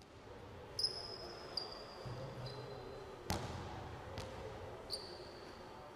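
A basketball bouncing a few times on a wooden gym floor, with long high sneaker squeaks on the floor about a second in and again near the end.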